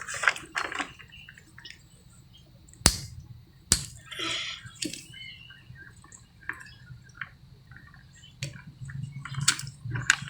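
Hermit crabs being handled and broken apart for bait: two sharp cracks a little under a second apart, then wet squishing and scattered small clicks.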